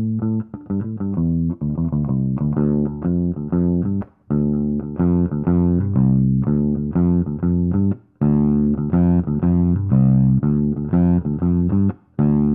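Electric bass (Fender Jazz Bass) played through a Mad Professor Little Green Wonder overdrive pedal into a Gallien-Krueger amp. It repeats a riff in phrases of about four seconds with short breaks between them. The pedal's knobs are turned as it plays, and the later phrases sound brighter.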